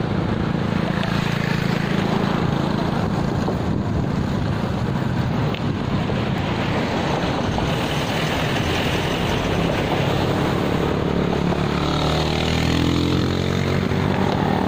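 Steady wind rumble on the microphone of a camera carried on a moving bicycle, with road traffic passing close by.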